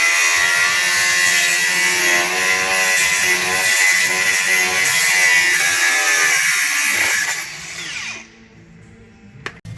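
Power tool, most like an angle grinder, running hard against the steel of a rusted wheel arch: a loud, hissing whine with a steady high tone. It stops about seven and a half seconds in.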